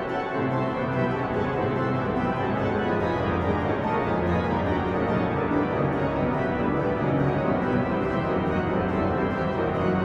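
Organ music with full, held chords.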